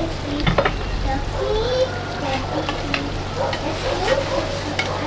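Food frying in a pan, sizzling, with scattered small clicks of stirring.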